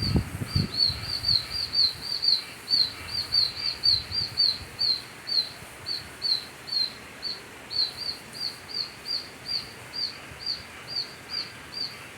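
Baby birds calling without a break in high, repeated distress chirps, about three a second, over a steady hiss of rain.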